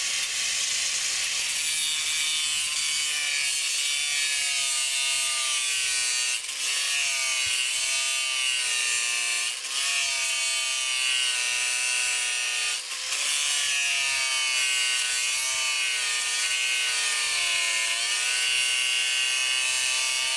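Angle grinder with a cutting disc running under load as it cuts through the hard steel blade of an old hoe: a steady high whine with grinding hiss. The motor's pitch sags and recovers as the disc is pressed into the metal, with brief dips about a third and two-thirds of the way through.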